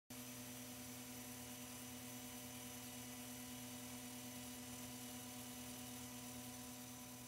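Faint steady hum with a few fixed tones over a light hiss, starting abruptly right at the start.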